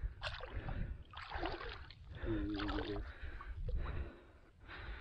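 Shallow lake water splashing in several short bursts as the angler wades and a hooked carp is drawn to the landing net.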